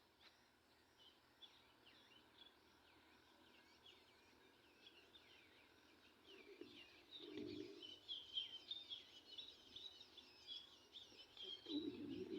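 Small birds chirping, many quick short calls that grow louder and busier about halfway through, with two brief low muffled bumps.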